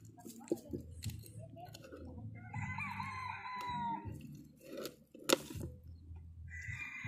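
A rooster crowing twice, one crow about two and a half seconds in and another starting near the end, with a single sharp knock a little after five seconds in.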